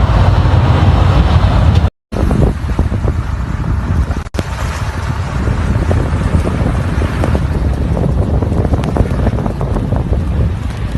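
Strong wind buffeting the microphone over a steady vehicle rumble, cut off for an instant about two seconds in and again about four seconds in, with a scatter of faint ticks.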